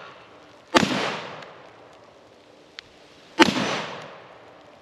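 Two shots from a Remington Model 11 12-gauge semi-automatic shotgun with a cut-down 18½-inch barrel, firing light loads about two and a half seconds apart, each echoing away over about a second. At the start, the echo of a shot fired just before is still fading.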